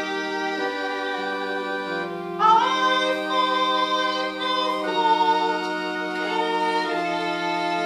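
Slow music of held chords that change every second or two, with a singing voice that slides up into a note about two and a half seconds in.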